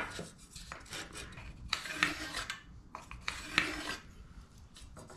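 Carpenter's pencil drawn along a speed square on a pine board, scratching the wood in two longer strokes about two and three and a half seconds in, with shorter scrapes of the square being set on the board before them.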